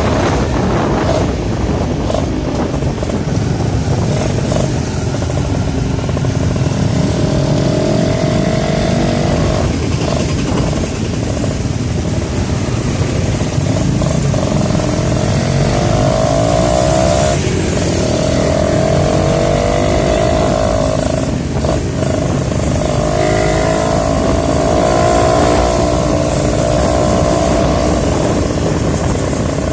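Suzuki Tornado two-stroke motorcycle engine running under way, its note rising and falling with the throttle over a steady low rush.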